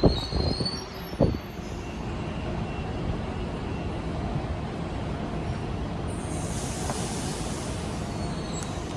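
Electric passenger train running along the station platform: a steady rumble with faint high wheel squeal in the first couple of seconds, and a hiss that comes in about six seconds in.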